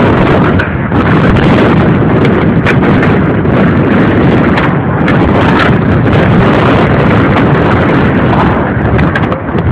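Wind buffeting a camera microphone: a loud, constant rumbling rush, with scattered sharp clicks.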